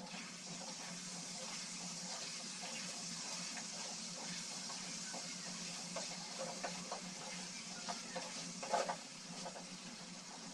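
Spice masala sizzling steadily in an aluminium karahi on a gas burner turned low, a continuous hiss over a low hum. A few light clicks and scrapes come between about six and nine seconds in.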